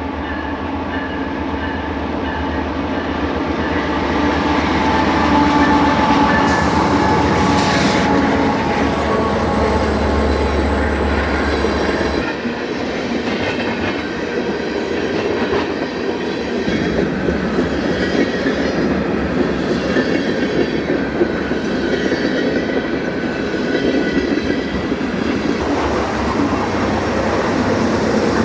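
A train passing: diesel locomotive engines droning for roughly the first twelve seconds, then the cars rolling by with a steady rattle and clickety-clack of wheels over the rail joints.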